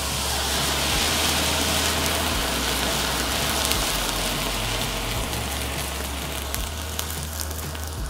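A heap of gunpowder burning fast in a clay bowl: a loud rushing hiss with scattered crackles as it flares. It swells about a second in and eases off toward the end as the flame dies down.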